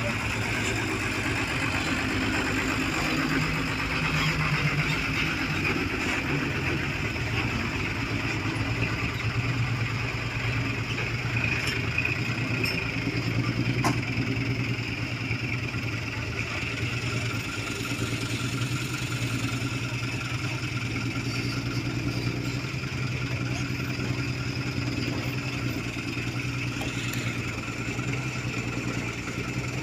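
Diesel truck engines running steadily with an even low hum, and a single short knock about 14 seconds in.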